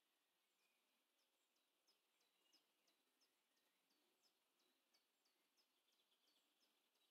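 Near silence with a faint series of short, high chirps, each dropping in pitch, repeated about three times a second from a small bird, starting just under a second in.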